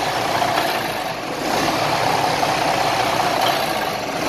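Detroit Diesel DD15 inline-six diesel engine idling unevenly, its idle wavering slightly. The unstable idle is caused by a damaged engine wiring harness that upsets the fuel rail pressure sensor signal.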